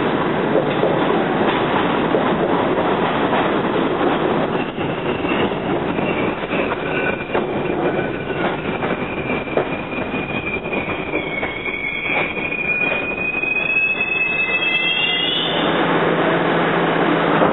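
An R68 subway train pulling into the station off a curve: its steel wheels click over rail joints and squeal shrilly. The squeal rises in pitch and cuts off about fifteen seconds in as the train comes to a stop, leaving a steady hum.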